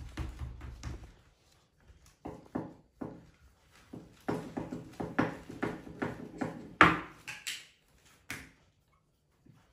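Rolling pin rolling out parotta dough on a countertop: a quick run of short rolling strokes and knocks, the loudest about two-thirds of the way through.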